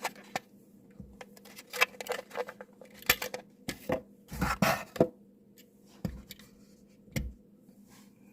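Hands unpacking a small die-cast model car: irregular clicks, taps and short scrapes of cardboard and hard plastic packaging, busiest in the middle.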